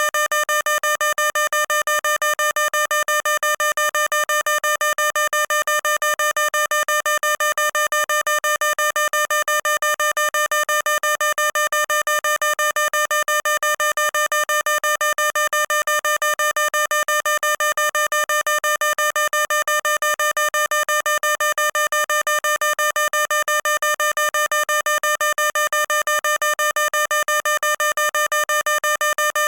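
Electronic fire alarm sounder beeping on one steady pitch in rapid, even pulses, several a second, without let-up.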